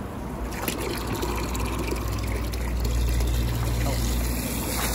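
Water running and spraying over a car during washing, with a low steady motor hum that comes in about a second and a half in.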